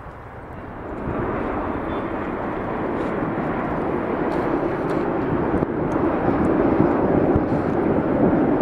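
Jet noise from a McDonnell Douglas MD-80-series airliner with rear-mounted engines, passing low overhead on final approach with its gear down. The sound rises sharply about a second in, then holds steady and grows slowly louder.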